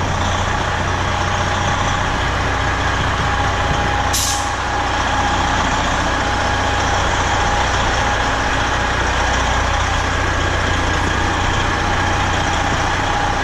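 Semi truck's diesel engine running steadily at low speed, with a steady whine over the engine note and a short burst of hiss about four seconds in.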